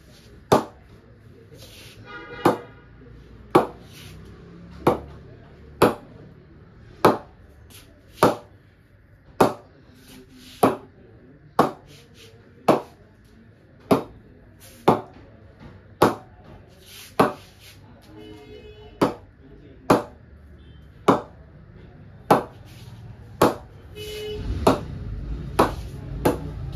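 A DSC Blue 5 English willow cricket bat being struck over and over in a ping test. The sharp knocks come evenly, about one a second.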